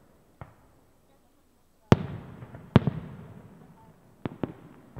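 Aerial firework shells bursting: a faint bang just after the start, two loud bangs about a second apart near the middle, each trailing a rumble that fades over a couple of seconds, then two quicker bangs near the end.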